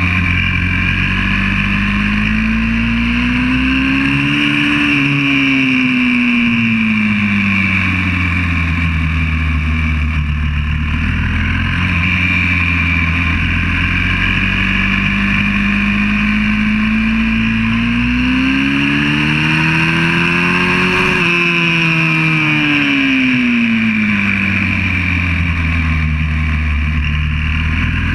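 Single-cylinder engine of a YCF 125cc four-stroke pit bike running under way, recorded on the bike itself. The engine note climbs in pitch and falls back twice, about five seconds in and again about twenty seconds in, and holds steadier in between.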